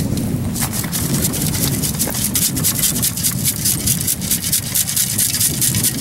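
Sand and bits of shell rattling and hissing through a perforated metal beach sand scoop as it is shaken, a rapid run of many small clicks, over wind rumble on the microphone.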